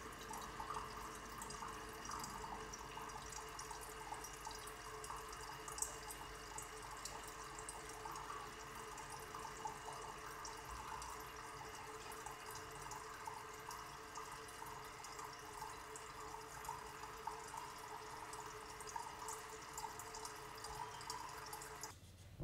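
Faint, steady bubbling from an aquarium air stone, with air bubbles rising through the water and popping in small ticks and drips at the surface.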